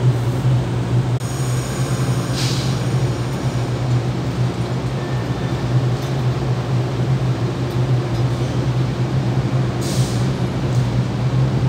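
VIA Rail passenger train with P42DC diesel locomotives starting to pull slowly out of the station: a steady low drone of the diesel engines, broken twice by a short hiss of air, about two and a half seconds in and near the end.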